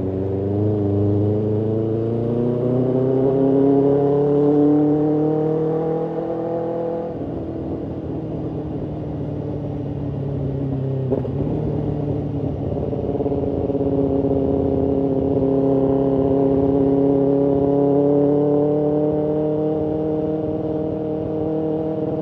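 BMW S1000RR's inline-four engine pulling in gear, its note rising slowly as the bike accelerates. About seven seconds in the clear note turns rougher for a few seconds. After a brief click near eleven seconds, the revs climb gently again and hold steady.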